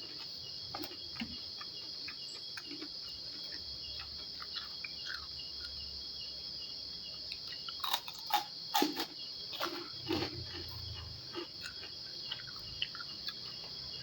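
Crickets chirping steadily in a high, continuous trill. A cluster of eating noises, clicks and crunches, comes in around the middle.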